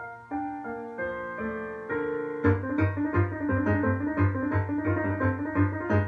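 Solo piano music: held chords at first, then about two and a half seconds in it turns louder into a fast, driving passage over repeated low bass notes.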